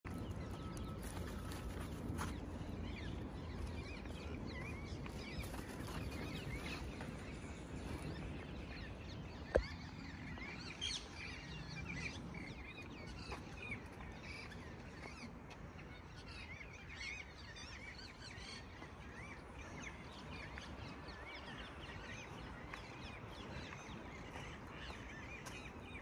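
Outdoor park ambience: birds chirping and twittering on and off over a low steady background rumble, with one sharp click about ten seconds in.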